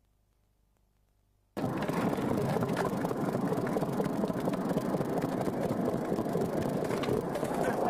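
Near silence, then suddenly, about a second and a half in, skateboard wheels rolling over rough concrete: a steady gritty noise with many small clicks.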